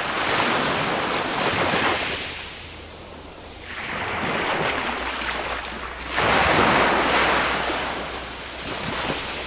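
Small waves of a calm sea breaking on the shore and washing up the beach, surging and ebbing in turn. The loudest wave breaks about six seconds in, with smaller swells before and after.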